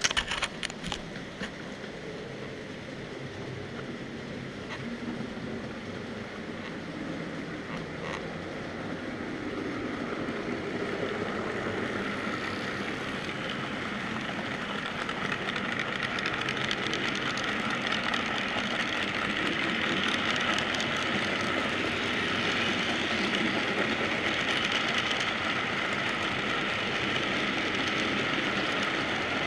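Model freight train's wagons rolling past close by on the layout track: a steady rolling clatter of small metal wheels on rails that grows gradually louder. A few sharp knocks at the very start.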